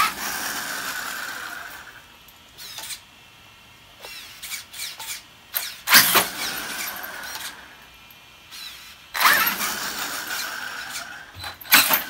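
Traxxas E-Revo 2.0 RC truck driven in short throttle bursts on concrete: the electric drive motor whines up with the tyres scrabbling, each burst starting sharply and fading out, about four times.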